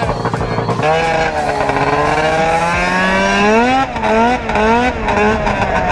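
Two-stroke snowmobile engine swapped into a John Deere Gator UTV, running hard under way: its pitch climbs steadily for a few seconds, then rises and falls about three times in quick succession as the throttle is worked.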